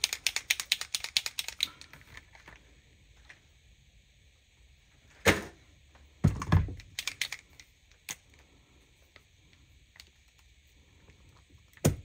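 A fast, even run of light clicks, about eight a second, for the first couple of seconds, then scattered knocks and a heavier thud as a hard cast-resin butterfly is handled against the table and silicone molds; a single sharp click near the end.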